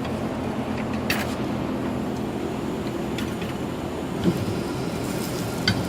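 Steady hum of a truck tire changer machine's motor running, with a few short sharp knocks from the bar working the tire bead off the rim.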